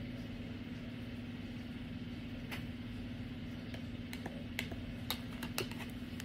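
Steady low room hum, like a fan or appliance running, with five or six light clicks of tarot cards being handled on a table, spread through the middle and later part.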